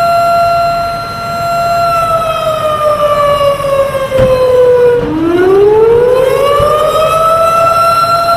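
Fire truck siren holding a steady high wail, then winding down for about three seconds and winding back up to the same pitch.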